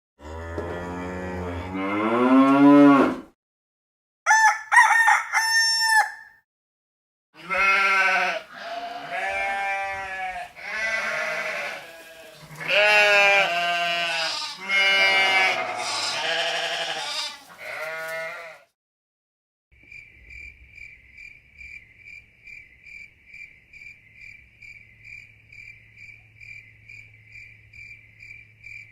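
A run of studio animal sound effects: a long call that rises and falls, a short high-pitched call, then about ten seconds of repeated bleating. A steady, rapid pulsing chirp, about two pulses a second, follows and fills the last nine seconds.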